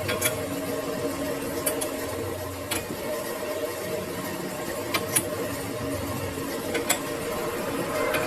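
Metal lathe running steadily with a constant mechanical hum, with a few sharp clicks or metallic ticks through it, about six in all.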